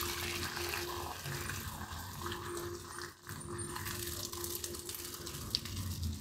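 Hot cooking water and boiled pasta poured from a steel pot into a stainless-steel mesh strainer, the water splashing and draining through the mesh in a steady rush.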